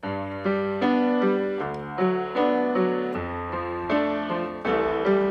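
Background music: a piano or electric keyboard playing sustained chords over a bass line, the chords changing about every half second.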